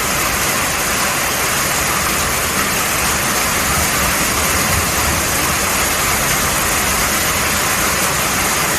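Heavy summer downpour, a steady, even hiss of rain with no let-up.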